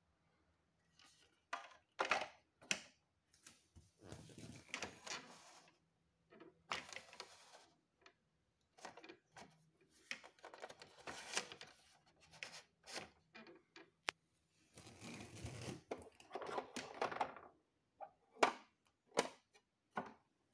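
Irregular plastic clicks, taps and rattles from the cars of a Playmobil toy train being handled by hand: their clear plastic roofs and doors moved and set back in place.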